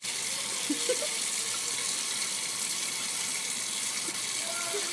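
Sink faucet running steadily, a thin stream of tap water splashing into the sink basin.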